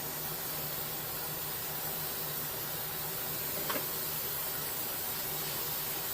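Battery-powered paint sprayer running with a steady hiss and a low hum, with a single click about three and a half seconds in.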